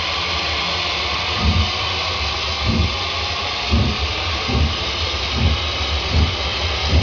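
OO gauge model train running on the layout: a steady hiss with soft low thumps, about one a second at first, coming gradually faster as the train pulls away.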